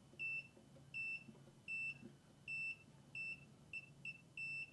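Digital multimeter on its continuity setting giving short, same-pitched high beeps, about eight of them at uneven intervals, as the probe is touched to the rear window defroster grid. Each beep signals an unbroken conductive path through the repaired defroster circuit.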